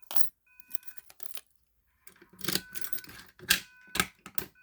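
Irregular sharp clicks and clacks from a Simplex 2099-9799 fire alarm pull station being handled and reset, its handle and cover snapping back into place. A faint electronic beep comes and goes in the background.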